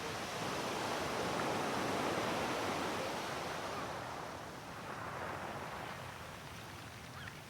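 Sea waves washing ashore in a steady rush of surf, swelling to a peak about two seconds in and then falling back. A few faint gull calls come in near the end.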